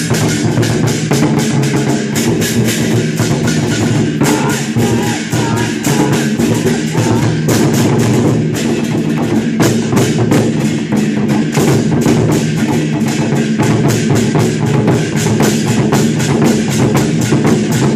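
Chinese war drum troupe (zhangu) beating large drums in a fast, unbroken rhythm, with sharp strokes packed closely together.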